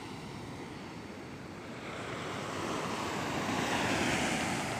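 Surf breaking and washing up a sandy beach, the rush building to a peak about four seconds in, with wind buffeting the microphone.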